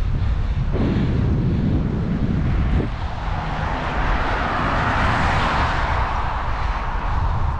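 Wind rumbling on the microphone while riding a road bike, with a car passing the other way about four to six seconds in, its tyre noise swelling and then fading.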